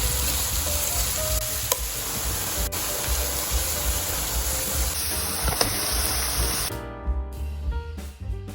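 Food sizzling in a frying pan over background music with a steady beat; the sizzling cuts off about seven seconds in, leaving only the music.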